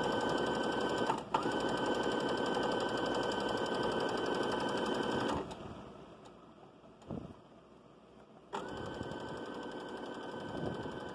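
Electric sewing machine stitching a seam through two layers of fabric, with a brief break about a second in. It stops for about three seconds in the middle, with one short handling sound during the pause, then starts stitching again more quietly.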